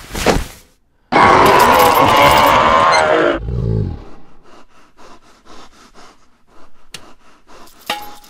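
A loud, strained scream lasting about two seconds, cut off by a few low thuds, then a run of small clicks and rustling as the camera is jostled.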